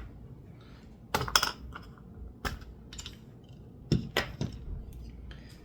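Scattered clicks and knocks of hard objects being handled and set down on a desk, a quick cluster about a second in and then single knocks every second or so.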